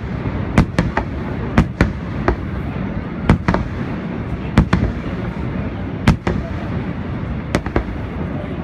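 Aerial fireworks shells bursting: sharp bangs about every second or so, often in pairs a fraction of a second apart, over a steady low background rumble.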